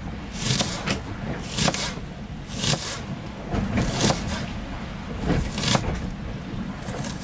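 Kitchen knife slicing through an onion onto a cutting board, with a crisp cut about once a second over a low steady rumble.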